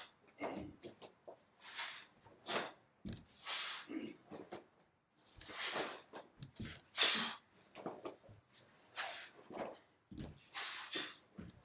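Sharp, hissing exhalations of two karateka forcing out their breath with each technique of a Goju-ryu kata. They come as a series of short bursts, roughly one a second, with brief quiet between.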